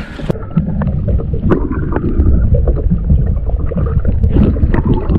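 Muffled underwater water noise from a camera held below the surface: a dense low sloshing and gurgling, with many small knocks and clicks against the housing. It starts suddenly about a third of a second in, with the upper sounds cut off.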